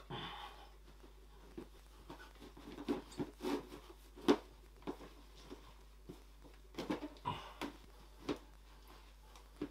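Hands pressing and patting moist coco peat substrate down into clear plastic enclosures: irregular soft pats, rustles and knocks, loudest a little under halfway through.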